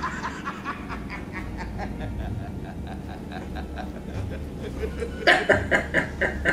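A man laughing in a rhythmic chuckle, soft at first, then much louder from about five seconds in.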